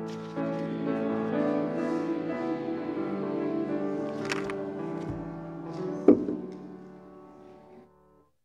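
Music: the closing held chords of a church hymn, fading out near the end, with a single sharp thump about six seconds in.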